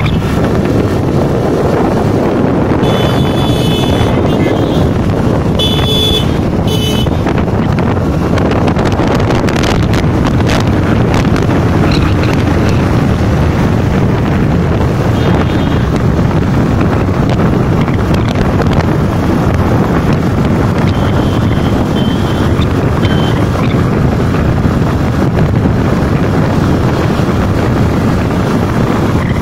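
Wind rushing over the microphone and the steady running noise of a vehicle travelling at speed on an open road. A few short, high beeping tones sound between about three and seven seconds in.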